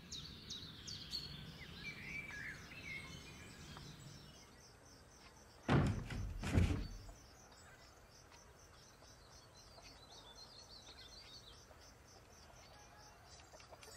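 Quiet rural ambience with birds chirping and a faint, steadily repeating high chirping, broken about six seconds in by two dull thuds a little under a second apart.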